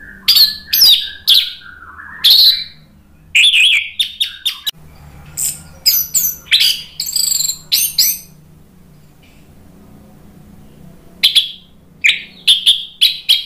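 Orange-headed thrush in full, loud song. It gives bursts of sharp, rapid whistled notes and short gliding phrases, then goes quiet for about three seconds before a final run of notes near the end.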